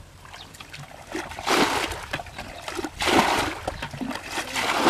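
Muddy pond water splashing and sloshing as a plastic bucket is scooped in and the water thrown out, in loud splashes about every second and a half.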